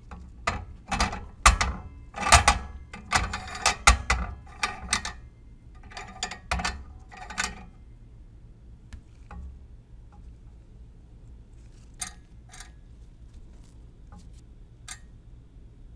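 Riders on a triple beam balance being pushed along its notched beams, clicking into the notches in a quick series of sharp clicks and knocks for about seven seconds, then a few isolated ticks later on as the balance is read.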